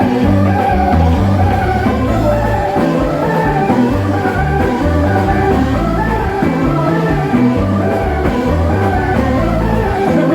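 Music with singing, a steady bass beat and guitar.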